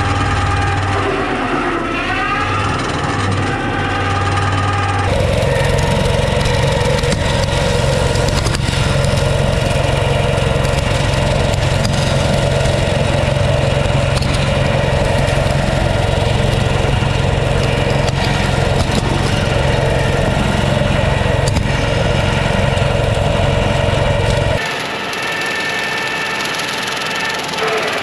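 TYM 754 tractor's diesel engine running under load while its front-mounted Lane Shark hydraulic brush cutter spins, chewing through dry grass. A steady mechanical drone, with a short rise in pitch a couple of seconds in and again near the end.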